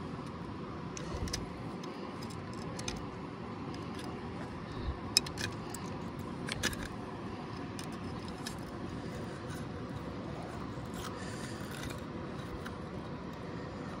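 Small metallic clicks and scrapes of a hook remover working a hook free inside a walleye's mouth, with a few sharper clicks about five and six and a half seconds in, over a steady background rush.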